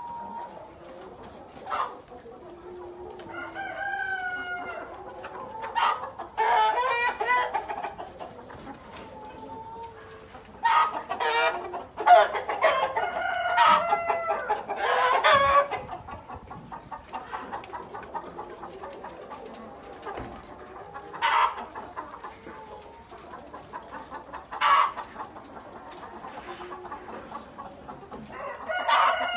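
Flock of Black Tailed Red Marans chickens clucking and calling, with a run of louder, drawn-out calls in the first half and a few short, sharp calls later on.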